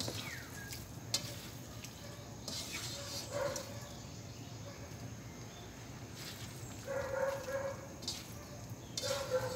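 Spatula stirring and scraping sautéed pechay in a wok, with scattered scrapes and knocks against the pan and sizzling underneath.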